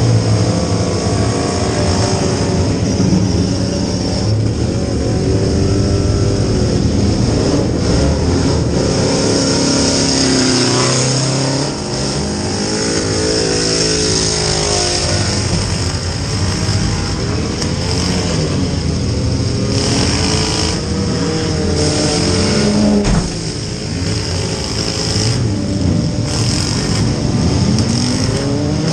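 Demolition-derby compact car's engine revving up and down hard, heard from inside the stripped cabin, with several sharp bangs of hits along the way.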